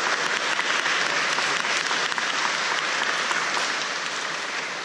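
Audience applauding, many hands clapping at once, beginning to fade near the end.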